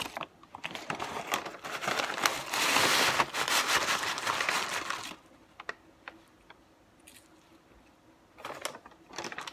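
Paper takeout bag rustling and crinkling as it is handled and emptied of food, loudest over the first five seconds, then a few light knocks near the end.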